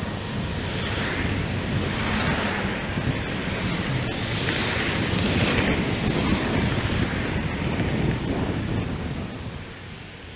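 Wind rushing over the camera microphone on a moving e-bike, a loud noise that swells and fades, with road traffic mixed in. It eases near the end.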